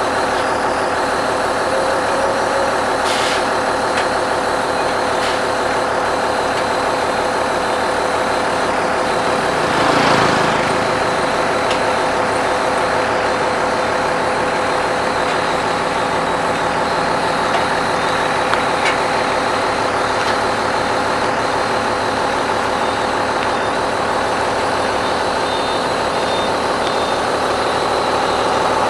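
Heavy diesel engines of a dump truck and an asphalt paver running steadily, with a short rush of noise about ten seconds in.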